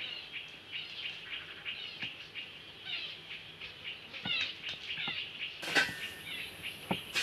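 Small birds chirping, with many short, high calls overlapping one another. A louder noise comes in near the end.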